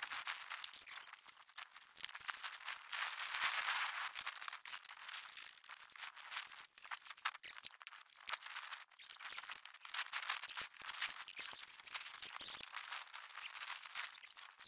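Faint, thin rustling with many irregular clicks as nylon tie-down straps are threaded, pulled and handled to secure the Argo to a sled.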